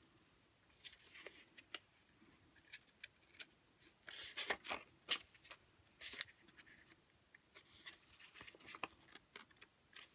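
Paper play-money notes being peeled apart and shuffled from a stack: faint, irregular crisp rustles and flicks of paper, in clusters about a second in, around four to five seconds in, and again near the end.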